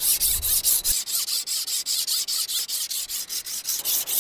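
A small diamond sharpener rasped quickly back and forth across the teeth of a Silky BigBoy 2000 folding saw blade, about five strokes a second in a steady rhythm, sharpening the saw.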